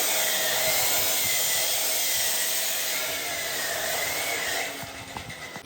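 A power tool working metal: a loud, steady hiss with a faint wavering whine, stopping about three-quarters of the way through.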